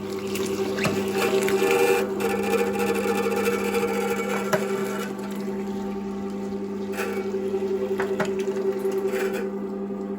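Rural Butcher T22 electric meat grinder running with a steady motor hum as meat is fed through, with a few short clicks.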